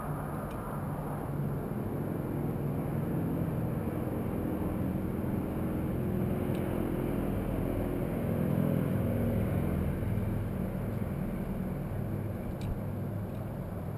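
Steady low rumble of background noise that swells a little past the middle, with three faint clicks spread through it.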